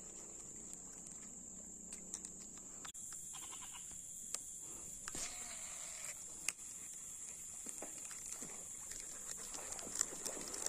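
Steady high-pitched drone of insects in the swamp forest, with scattered sharp clicks and knocks from a baitcasting reel and fishing rod being handled.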